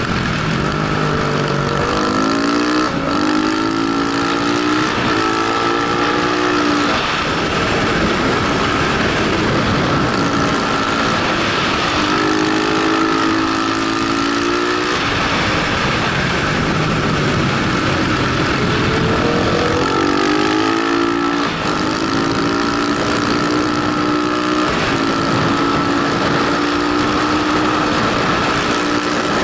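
Motorcycle engine heard from on board, pulling hard several times with its pitch climbing and falling between pulls, then holding steadier near the end. A steady high whine runs underneath, and heavy wind rush covers it all.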